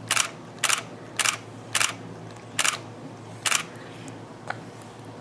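A single-lens reflex camera's shutter firing again and again: about seven quick clacks spaced half a second to a second apart, the last one fainter and after a longer gap.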